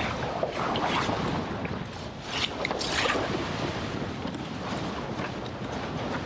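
Windsurf board planing fast over choppy water, with water rushing and spraying under the hull and strong wind buffeting the action camera's microphone. Splashy surges come about a second in and again around two and a half to three seconds.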